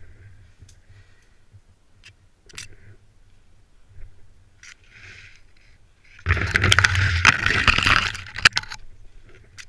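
Branches and twigs scraping and snapping against a head-mounted camera as the wearer pushes through dense brush. It is faint with scattered clicks at first, then turns loud and crackling for about two seconds past the middle.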